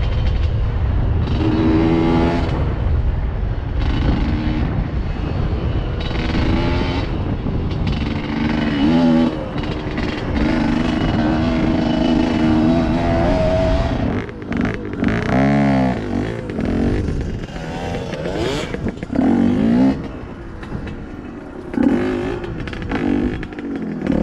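GPX Moto dirt bike engine running under load on rocky singletrack, heard from the rider's helmet. The revs hold fairly steady at first, then rise and fall sharply several times in the second half as the throttle is worked over rough ground.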